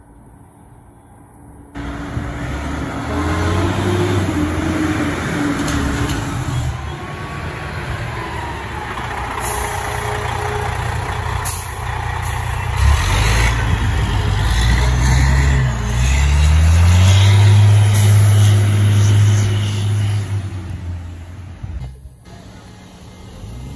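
Fire engine's diesel engine running as the truck drives past close by, its note stepping up in pitch as it pulls away and loudest near the end, with a few short air hisses.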